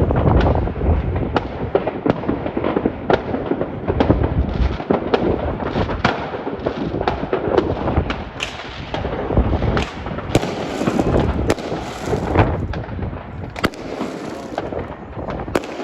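New Year fireworks display: a dense, continuous barrage of overlapping bangs and booms over a steady rumble, heaviest in the first few seconds, with high crackling shells breaking about two-thirds of the way through.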